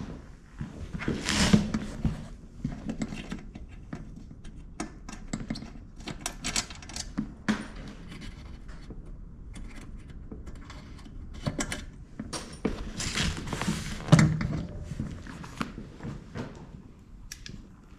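Hands handling motorcycle parts and tools: scattered clicks, knocks and rubbing, with louder rustling and scraping about a second and a half in and again around thirteen to fourteen seconds.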